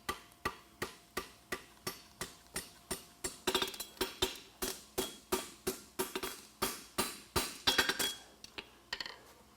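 Farrier's hand hammer striking a horseshoe of steel bar on an anvil: steady, evenly spaced blows about three a second, each with a short metallic ring, stopping shortly before the end. The blows are drawing up and puckering the toe to form the cap toe.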